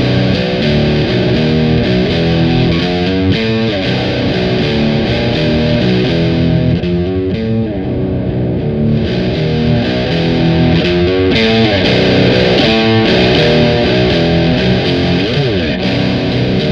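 Electric guitar (a Fender Jazzmaster's bridge pickup, tuned to C standard) played through a Nux DS-3 Classic Distortion pedal into a miked Sound City PA 50 Plus amp: thick, saturated distorted riffing. The treble dips and then returns brighter as the pedal's TONE knob is turned. A pitch slide drops down near the end.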